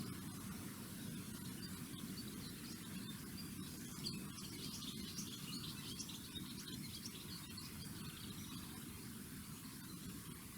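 Outdoor ambience: a steady hiss, with a scatter of faint, high-pitched chirps through the middle few seconds.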